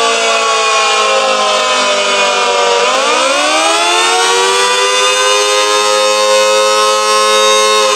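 Federal Signal Model 2 electromechanical outdoor warning siren sounding, echoing. Its tone sags slowly, drops sharply about three seconds in, then climbs back to a steady high pitch.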